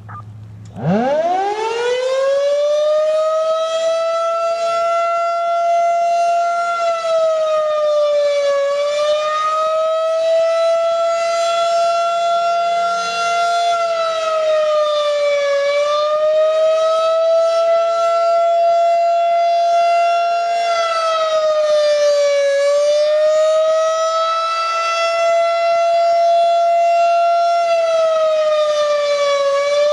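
Federal Signal 2001-SRN electronic outdoor warning siren starting up about a second in, its pitch sweeping quickly up to a steady tone. It then holds the steady alert tone, dipping slightly in pitch about every seven seconds as the rotating speaker head turns.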